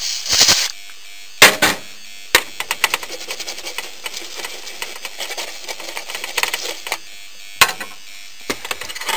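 A short hiss of flux-remover spray at the start, then, after a couple of knocks, a toothbrush scrubbing fast over a circuit board, its bristles rasping for about four seconds to wash the flux off the chip's pins. A few more knocks come near the end.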